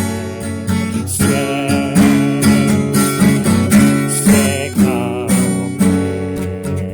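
Music led by a strummed acoustic guitar, with a wavering melody line above the chords and a steady rhythmic pulse.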